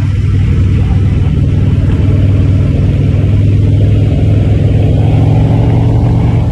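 Motorcycle engines running on the move, a loud steady low drone that rises slightly in pitch toward the end.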